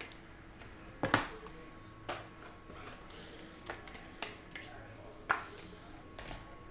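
Trading cards and plastic card holders being handled on a desk: about six sharp, separate clicks and taps, the loudest about a second in, over a faint steady hum.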